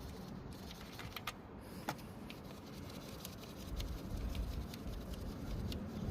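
Faint, irregular small metallic clicks and taps of a 10 mm deep socket and the loosened engine-cover bolts being worked off by hand, with a low rumble of handling that grows louder over the last couple of seconds.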